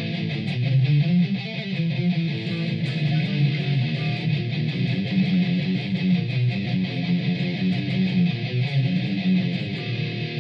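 Electric guitar played without pause, a continuous riff of low notes that change quickly.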